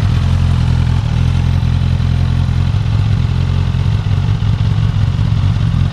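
Suzuki GSX-S1000 inline-four engine idling steadily through its stock exhaust, shortly after being started.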